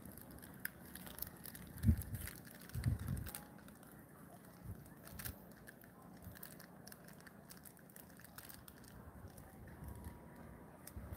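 Faint handling noise from a handheld phone: crackling and scattered clicks, with a few low thumps about two and three seconds in.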